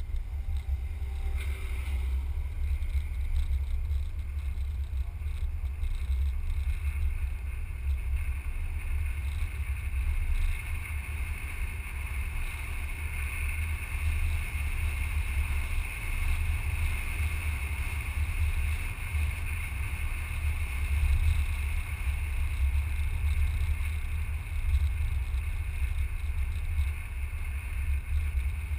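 Steady driving noise of a car on a mountain road: deep low rumble of wind buffeting a microphone mounted on the outside of the vehicle, with tyre and engine noise underneath.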